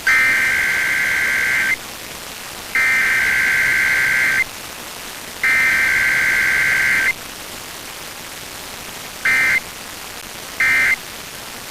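Emergency Alert System SAME data tones over FM radio: three harsh, buzzing bursts of digital data, each about 1.7 s long with a second's gap between them, which are the repeated test header. About two seconds later come two short bursts about a second and a half apart, the end-of-message code. A steady static hiss from FM reception runs underneath.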